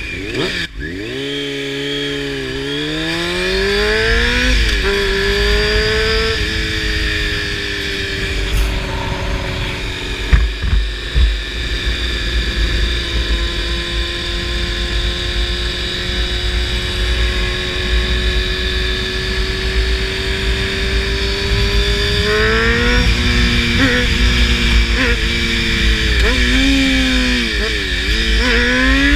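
Honda CBR600F4i's inline-four engine through a slip-on exhaust, pulling up through a gear change in the first few seconds, then holding steady revs for a long stretch. Near the end it rises and falls several times as the rider works the throttle and shifts. A heavy rush of wind on the microphone runs underneath.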